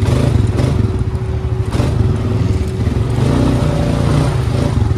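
ATV engine running steadily under the rider as the four-wheeler is driven through mud, with the engine note rising briefly a little past the middle.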